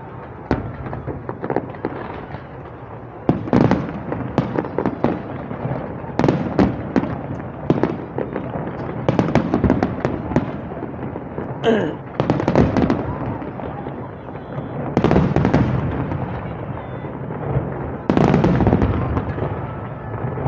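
Fireworks display going off: repeated sharp bangs and crackling salvos, coming in dense clusters every few seconds.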